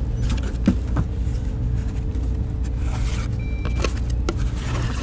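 Cardboard shoe box being turned over and opened by hand: a few sharp taps and short papery scrapes of the flaps. Under them runs a steady low rumble.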